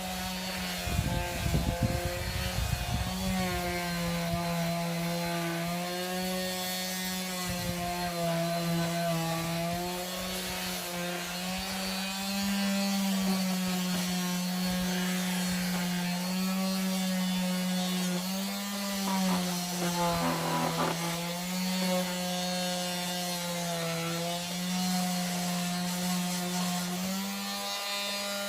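Electric sander running against wood, its motor hum dipping and recovering in pitch as it is pressed and eased. A few knocks near the start.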